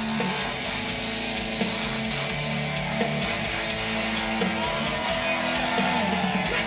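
Live hard-rock band playing an instrumental stretch: electric guitar with bent notes over held chords and a driving rhythm section.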